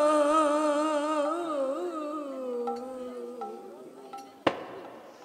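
A woman's solo voice singing Bengali kirtan, holding one long note with wide vibrato that sinks slowly in pitch and fades out after about three and a half seconds. A single sharp click follows about four and a half seconds in.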